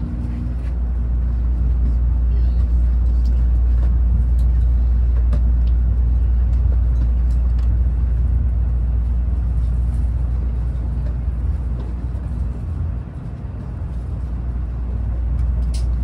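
Running noise inside an N700A Shinkansen car: a steady, heavy low rumble of wheels on rail with air and track noise over it. The rumble dips briefly about thirteen seconds in.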